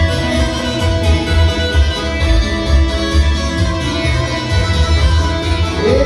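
Live band playing an instrumental kolo dance tune: a plucked-string lead over a steady bass beat.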